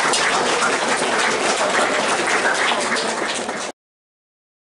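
Audience applauding: many hands clapping in a dense, steady run that cuts off suddenly near the end.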